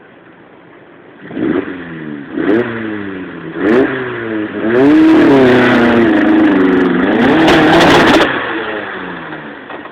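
A trials car's engine revving hard in repeated bursts, pitch rising and falling as the driver works the throttle up the section. It swells to a loud, sustained run about five seconds in, then drops away and fades as the car moves off.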